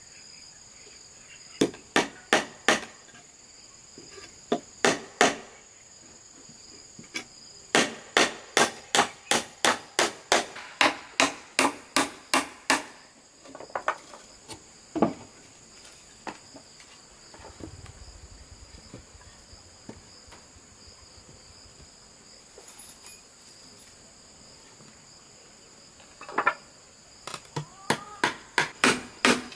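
Hammer blows on wood, as in nailing boards: quick runs of strikes at about three a second, separated by pauses and a few single blows. A steady high insect drone runs underneath.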